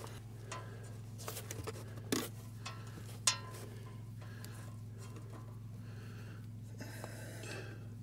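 A few light clicks and knocks from handling the battery and meter, over a steady low hum.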